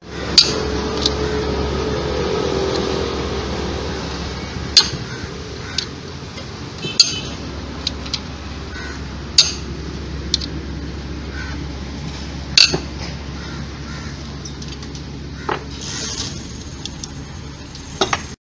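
Irregular sharp metal clinks of a socket wrench and tools against the main bearing cap bolts and cast engine block as the caps are tightened, over a steady workshop hum.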